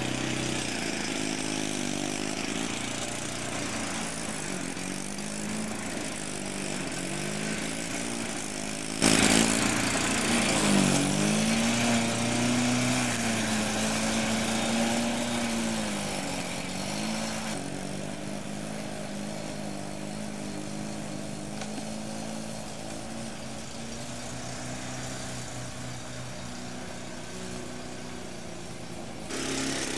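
Sachs KM3 110 cc Wankel rotary engine on a Wolf lawnmower running while it mows long grass, its pitch repeatedly dipping and recovering. About nine seconds in it gets suddenly louder.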